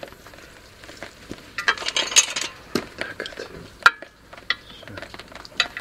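Hand tools and metal parts clinking and tapping, with a brief scraping rattle about two seconds in and a couple of sharp metallic clicks after it.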